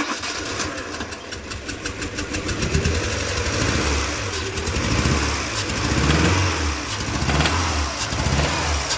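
Renault Sandero engine just started and being revved repeatedly, rising several times in the second half, with a knocking and pinging that the mechanic calls worse than on the Clio; he puts it down to a cylinder head fault, and a compression test then points to a head gasket broken between two cylinders.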